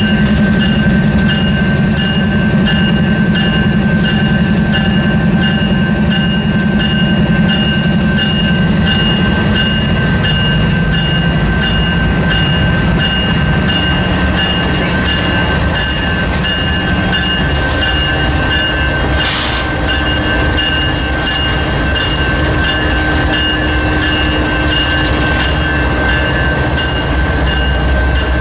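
Union Pacific diesel locomotives creeping past a grade crossing, their engines running with a steady low drone, while the crossing's warning bell rings steadily. About 18 seconds in the engine drone changes as the next locomotive comes alongside.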